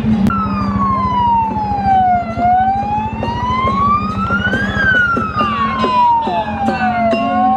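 A siren wailing in slow sweeps, its pitch gliding down, then up, then down again, each sweep taking about two and a half seconds, over the low steady rumble of vehicle engines.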